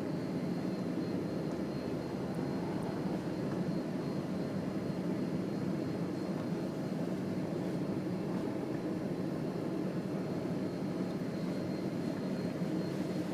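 Steady drone of a vehicle on the move, heard from inside the cab: engine and road noise at an even level throughout.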